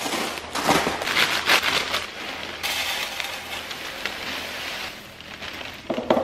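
Fruity Pebbles cereal poured from its plastic bag liner into a clear food-storage container: a dense, steady patter of small crisp flakes hitting the container and each other, along with the plastic bag crinkling.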